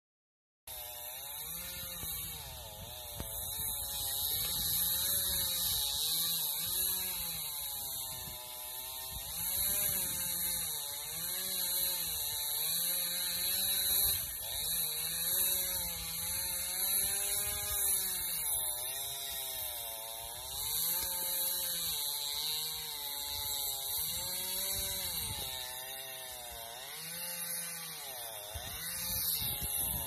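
Chainsaw running throughout, its engine pitch dipping and rising again every second or two as it cuts into the tree.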